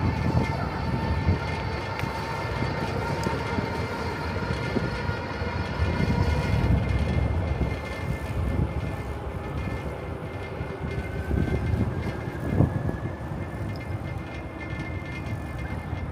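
Wind buffeting the microphone of a camera mounted on a moving bicycle: a steady low rumble, with faint steady tones above it and one louder thump about twelve and a half seconds in.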